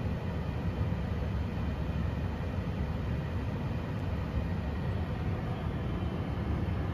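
Steady low rumble with a hiss on top, plus a faint high whine, inside a powered-up Boeing 747-400 flight deck on the ground: its ventilation and equipment cooling fans running.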